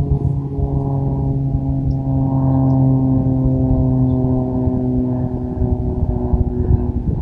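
A vehicle engine running at steady speed: a steady hum of several pitches over a low rumble.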